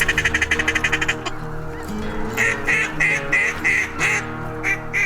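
Ducks quacking: a fast chatter in the first second, then a run of about six evenly spaced quacks and a few more near the end. Under them runs background music with sustained chords.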